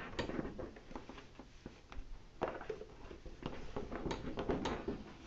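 Treadmill walking belt being pushed round by hand over the deck: scuffing and rubbing, with a few sharp clicks and knocks scattered through.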